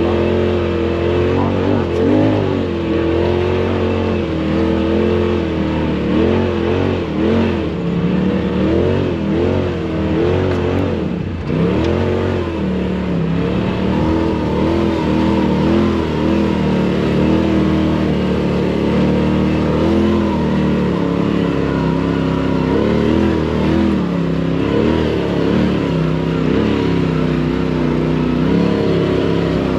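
Off-road vehicle engine revving over and over, its pitch rising and falling every second or so under repeated throttle, with a brief drop about eleven seconds in.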